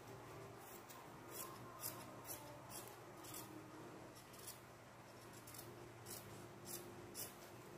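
Scissors cutting fabric: a quiet series of short, crisp snips about every half second, spacing out for a couple of seconds in the middle before picking up again.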